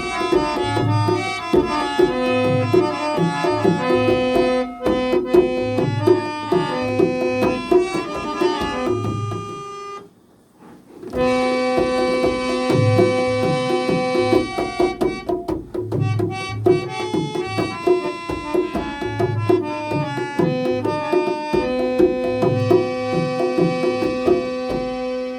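Instrumental music with tabla-style hand drumming under a held-note melody instrument. The music stops for about a second roughly ten seconds in, then resumes.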